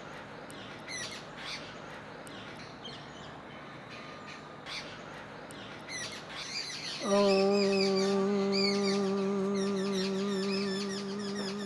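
Small birds chirping and calling. About seven seconds in, a long, steady low tone with many overtones begins suddenly and is held for several seconds, fading slightly.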